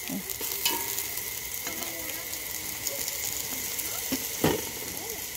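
Sliced shiitake mushrooms frying in a metal pot, a steady crackling sizzle, with one sharp knock about four and a half seconds in.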